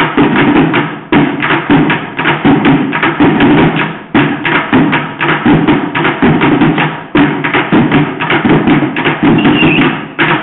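Several players drumming on upturned buckets with sticks: a fast, dense, loud rhythm of hits, falling back briefly about every three seconds between phrases.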